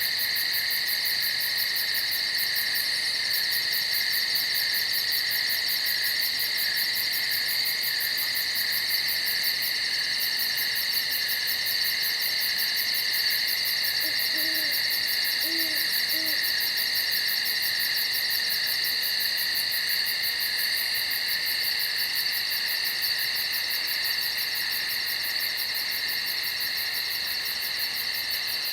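A steady chorus of night insects, with a fast, even high pulsing, and an owl hooting three short times about halfway through.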